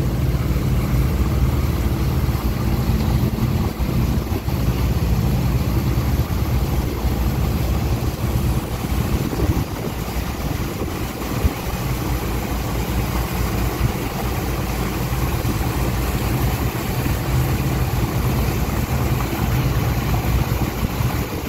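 Ferry boat's engine running steadily with a low hum, over a constant rushing noise.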